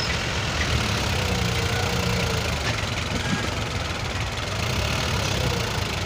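New Holland tractor's diesel engine running steadily under load as it drags a land leveller through loose soil.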